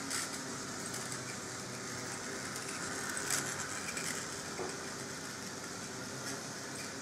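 Rivarossi D245 model diesel locomotive running on the track: a steady faint whir of its motor and wheels on the rails, with a sharp click a little over three seconds in.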